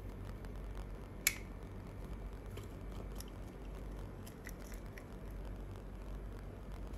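A single sharp click about a second in, followed by a few faint scattered ticks, over a steady low hum.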